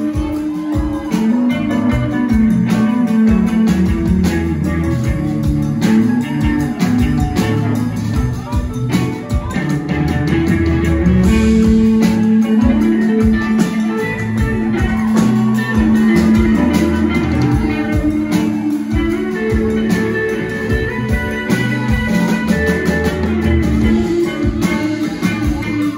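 Live rock band playing, electric guitar to the fore over a steady beat.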